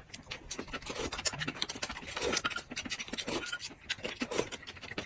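Irregular scratching and scraping: a quick, uneven run of small clicks and rubs.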